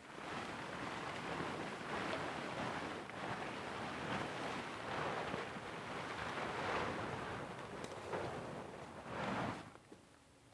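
Leafy branches and brush rustling and crashing as fallen tree debris is dragged and moved, in uneven surges, stopping sharply near the end.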